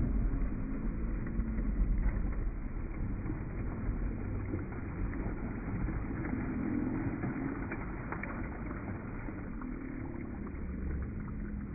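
Pool water splashing from a swimmer's entry and strokes over a steady low rumble, loudest in the first couple of seconds.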